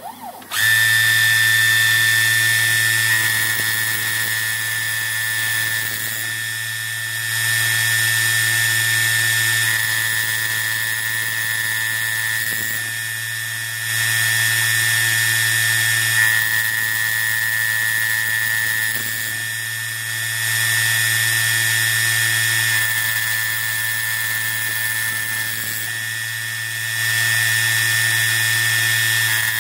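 Small high-speed milling spindle on a home-built CNC lathe, whining steadily as its disc cutter mills the hexagon flats on the end of a brass bar. It starts abruptly about half a second in, and its loudness steps up and down every few seconds.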